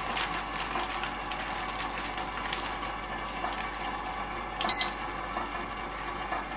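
Steady hiss of a portable gas burner heating a stainless steel pot of water for boiling bagels, with a few faint clicks and taps as the bagels go in. About four and a half seconds in, a short high electronic beep.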